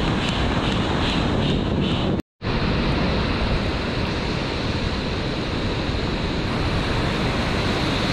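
Surf breaking on a beach with wind rumbling on the microphone, a steady noisy wash. It cuts out completely for a moment about two seconds in, then carries on.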